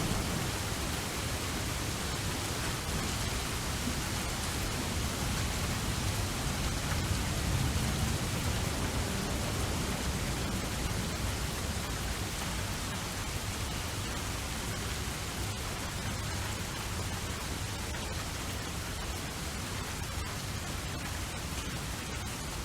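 Steady rain falling, an even hiss, with a low rumble swelling briefly about seven to eight seconds in.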